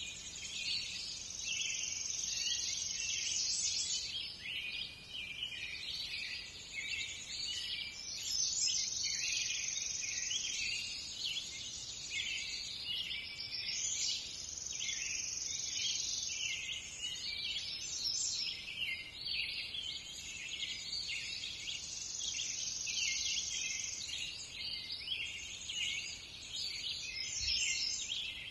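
Forest chorus of many small birds chirping and insects trilling, a dense high-pitched twittering that runs on without a break.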